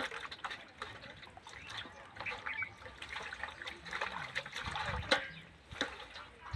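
Water trickling and splashing, with many sharp clicks and knocks and one louder knock about five seconds in.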